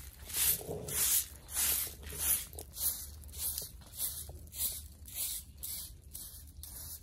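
Twig broom sweeping bare dirt ground: a dry, scratchy swish about twice a second, the strokes growing a little fainter in the second half.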